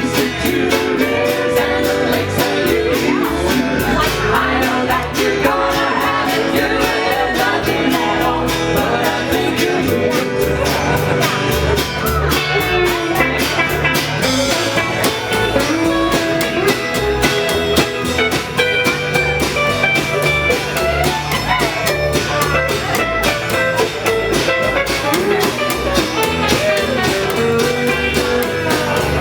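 Music: a mid-tempo song with a steady drum beat, guitar and singing.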